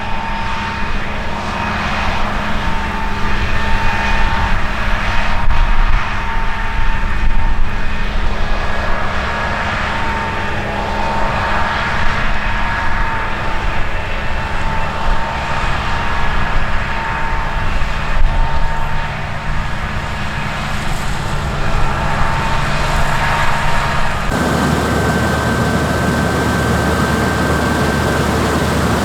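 Heavy harvest machinery running steadily under load, a high whine held over the engine's drone. Near the end the sound switches abruptly to another machine's steady hum and higher whine.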